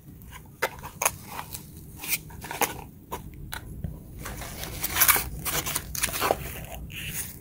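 Small cardboard box being handled: flaps folding open and scraping, with steel impact sockets shifting and knocking inside. Irregular crunchy rustles and light clicks, busiest about five seconds in.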